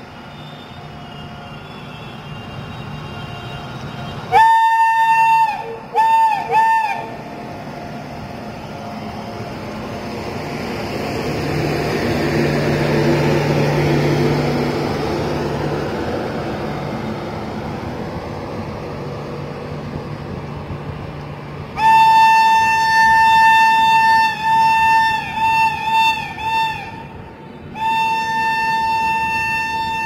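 WAP7 electric locomotive sounding its shrill horn while running past with its express train. A long blast about four seconds in is followed by two short toots, then the train noise swells and fades as the locomotive and coaches go by. In the last eight seconds the horn comes back with a long blast, a quick string of short toots and another long blast.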